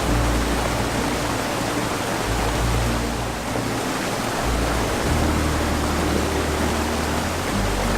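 Background music with slow, sustained low notes that change every couple of seconds, over the steady rush of a waterfall.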